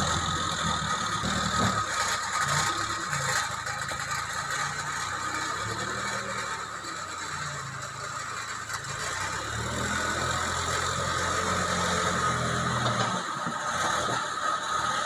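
Backhoe loader's diesel engine running, its note rising and falling as the machine drives and works its front bucket.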